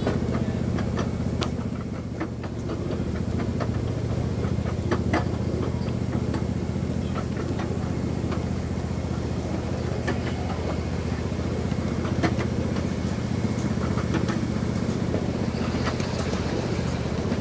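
Miniature ride-on train running: a steady low engine drone with occasional sharp clicks.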